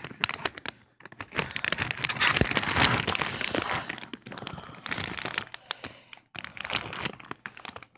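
Packaging and wrapping being handled, crinkling and rustling in a dense run of small crackles, with brief pauses about a second in and again near the end.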